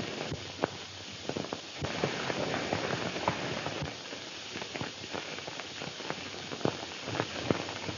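Scattered, irregular hoofbeats of a horse over the steady hiss of an old film soundtrack.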